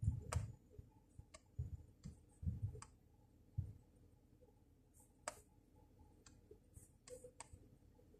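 Several faint, sharp clicks of a laptop's pointer buttons, spread irregularly over the seconds, among a few soft low thumps.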